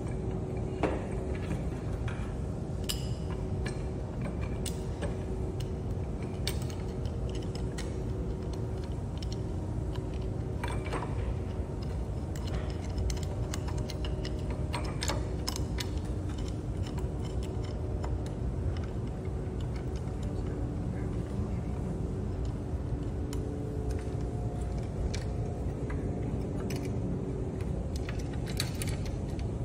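Scattered light clicks and taps of white metal frame tubes and their fittings being handled and pushed together, over a steady low hum.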